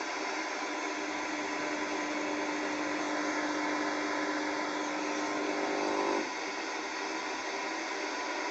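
Steady hiss of static from a Lenoxx Sound portable mini TV radio's speaker, with a few faint steady tones mixed in that cut off suddenly about six seconds in.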